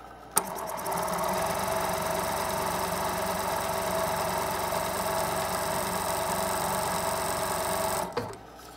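Juki DDL-9000C industrial lockstitch sewing machine running at speed for a hook oil-splash test, with the needle and presser foot off and the hook oiling turned down. It starts with a click about half a second in, comes up to speed within a second, runs with a steady mechanical hum, and stops abruptly with a click near the end.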